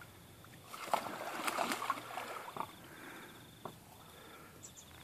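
Water splashing and sloshing for about two seconds, starting about a second in, then quieter lapping: an Australian pelican paddling and lunging after a hooked fish at the surface.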